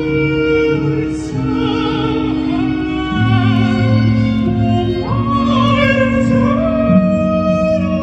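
Classical-style music with an operatic voice and strings, holding long notes with vibrato that change every second or two.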